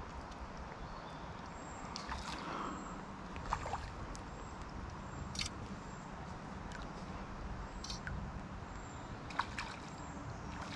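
Shallow river running past in a steady rush of water, with a handful of short, sharp ticks scattered irregularly through it.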